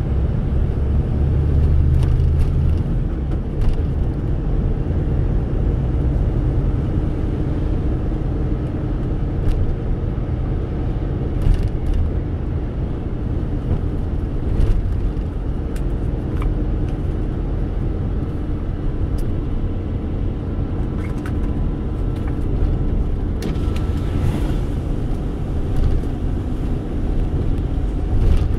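Car driving on a wet road, heard from inside the cabin: steady low engine and tyre rumble, with a few short knocks from bumps in the road.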